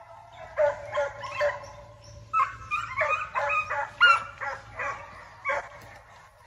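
Several young foxhounds baying in a run of short, overlapping cries, loudest about four seconds in.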